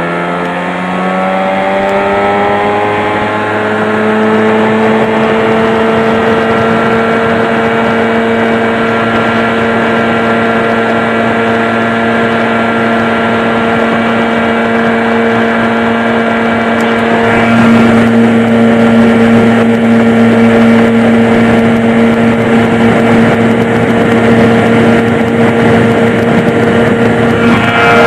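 1990 Evinrude 15 HP two-stroke outboard motor running at full throttle. Its pitch rises over the first few seconds as the jon boat picks up speed, then holds steady at high revs. It gets a little louder about 17 seconds in.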